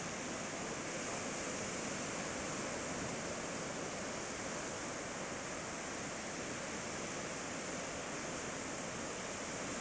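Small sea waves breaking on a sandy beach: a steady wash of surf.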